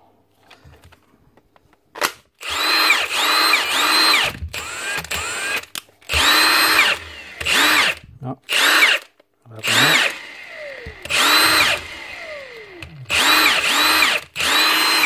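Milwaukee M18 cordless impact wrench running free in a series of short trigger bursts, the motor spinning up and winding down each time. This is a test run of its battery connection, where its battery contacts are known to wear, and the tool runs each time the trigger is pulled.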